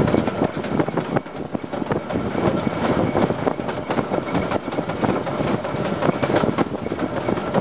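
Standard-gauge steam train, hauled by a Peckett tank engine, running along the track with a steady, dense, irregular clatter of wheels and rolling stock.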